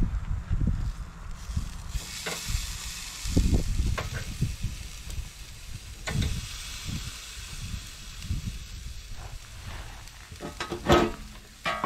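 Chicken breasts sizzling on a small portable charcoal grill as they are turned with a fork; the sizzle grows about two seconds in. A few sharp metal clinks near the end.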